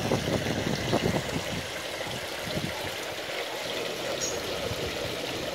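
Steady trickle of running water, with a few low bumps in about the first second.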